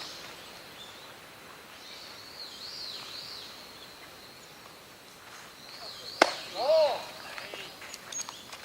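A single sharp crack of a bat hitting a baseball, about six seconds in, followed at once by a short shout. Faint, wavering high chirps come before it.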